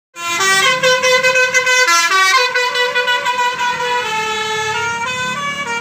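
Indonesian bus telolet horn, a multi-tone musical air horn, playing a short tune of quickly changing notes, then holding one chord for about three seconds.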